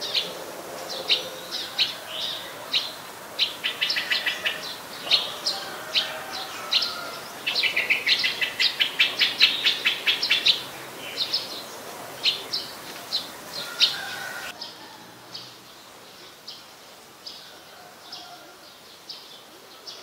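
Streak-eared bulbul calling: short, sharp calls repeated in quick runs, fainter after a cut near the three-quarter mark.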